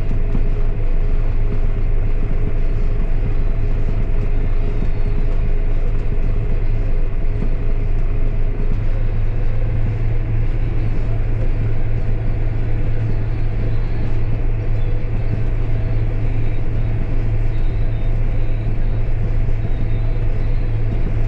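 John Deere 7820 tractor's diesel engine running steadily, a constant low hum with a few steady tones above it.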